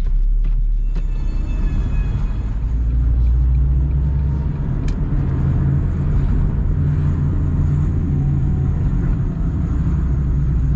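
Freshly rebuilt 2001 Ford Focus engine running under light load as the car is driven off, a steady low rumble that rises in pitch about four seconds in.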